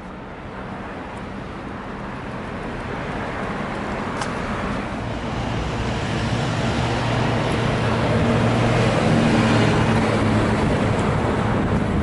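Road traffic noise with a low engine hum, growing steadily louder for most of the time as a vehicle comes closer, then easing slightly near the end.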